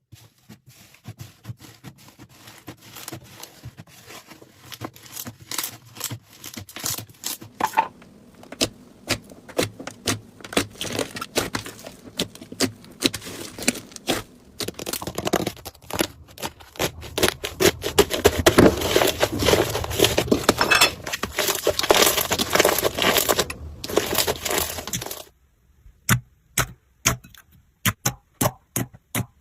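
Slime being squeezed, stretched and poked by hand, giving a stream of wet crackles and pops that grows denser and louder toward the middle, then a run of separate sharp pops near the end.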